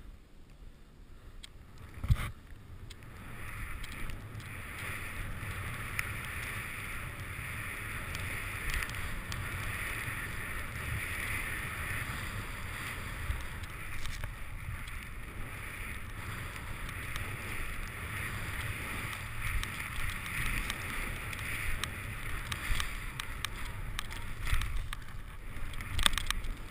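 Snowboard riding through deep powder snow: a steady hiss of the board in the snow that builds over the first few seconds, with wind rumbling on the helmet-mounted camera's microphone. A single sharp knock about two seconds in.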